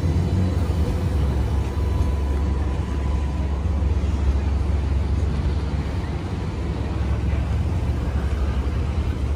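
Alstom Citadis X05 light rail tram passing at close range, a steady low rumble with a faint high whine that fades out about two seconds in.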